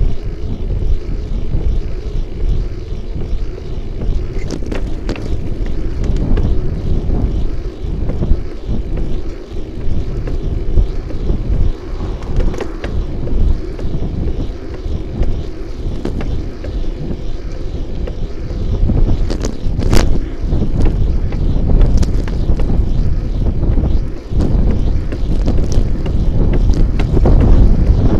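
Wind buffeting the microphone of a bicycle-mounted camera during a ride, a steady low rumble that gusts up and down. A few sharp clicks and rattles from the bike and mount come through now and then.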